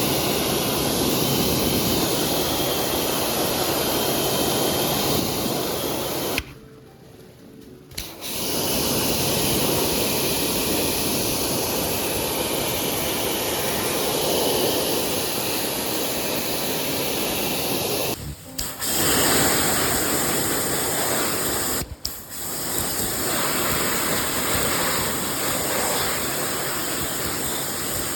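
Kärcher K4 pressure washer spraying water onto an air conditioner unit during cleaning: a steady rushing hiss with the washer's motor running underneath. It breaks off briefly about six and a half seconds in and again twice later.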